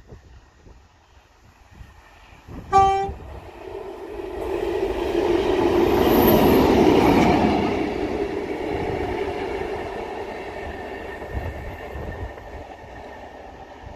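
Class 60 diesel locomotive running light engine: one short horn blast about three seconds in, then its diesel engine and wheels growing loud as it passes close by, loudest about halfway through, then fading as it runs away.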